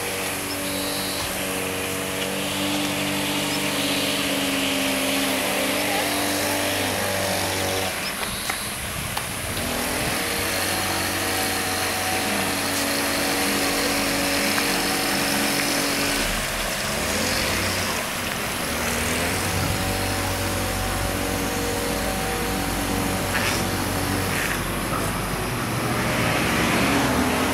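Water from a row of wall spouts splashing into a fountain pool, over a steady mechanical hum whose pitch shifts every few seconds.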